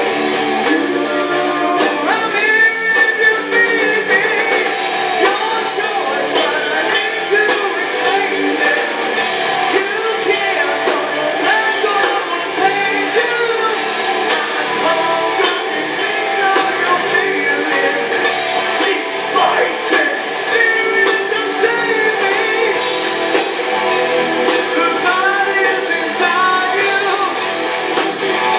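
A live rock band plays: a singer's voice over electric guitars and drums, steady and loud, with little deep bass.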